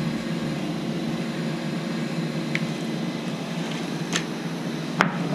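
Steady low background noise with a few faint clicks, and one sharp click near the end.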